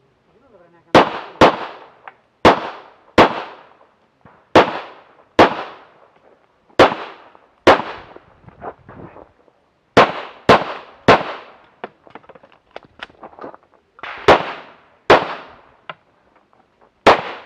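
Tanfoglio Limited semi-automatic pistol firing a string of about fourteen shots, mostly as quick pairs under a second apart. There is a gap of about three seconds past the middle that holds only faint clicks.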